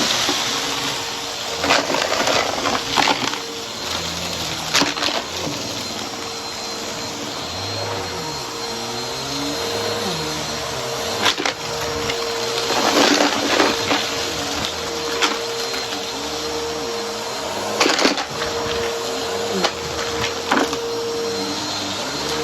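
Vacuum cleaner running with a steady motor whine, while its brushroll crunches debris off a rug in sharp crackles, the loudest clusters about halfway through and again some five seconds later.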